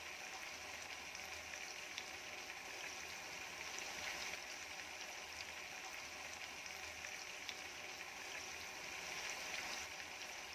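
Marinated chicken pieces frying in hot oil in a pan: a steady sizzle with small scattered crackles.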